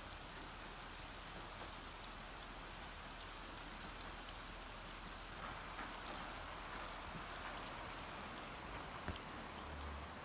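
Faint steady outdoor ambience: an even hiss with a few scattered light ticks and a soft low rumble.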